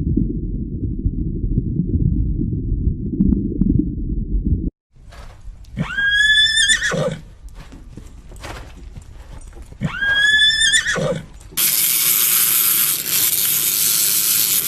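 Horse whinnying twice, about four seconds apart, each call rising in pitch and then breaking downward over about a second. Before the first whinny there is a low rumbling noise, and after the second a steady hiss sets in.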